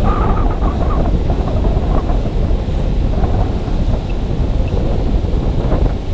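Wind buffeting the microphone: a loud, gusty rumble. About four seconds in, a handheld metal-detector pinpointer gives two faint short high beeps.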